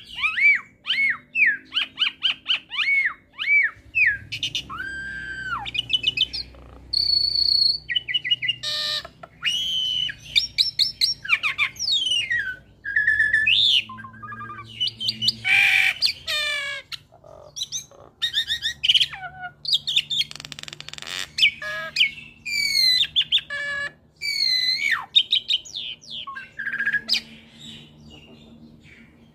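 Hybrid myna, an Asian pied starling crossed with a Nias hill myna, singing a long, varied run of whistles, rising and falling glides and fast trilled notes, with a few harsh chattering calls between them.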